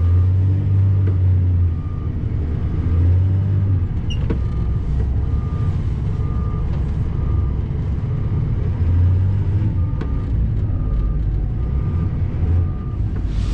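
Plow truck's engine running as it drives, a steady low hum that swells and eases. A faint short beep repeats about twice a second throughout.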